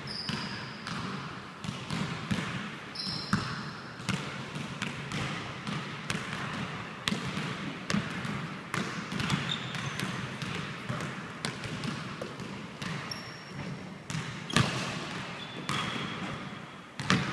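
Basketball bouncing on a hardwood gym floor, with irregular thuds throughout and short high squeaks of sneakers on the wood now and then. The hardest bounces come about three-quarters of the way through and again near the end.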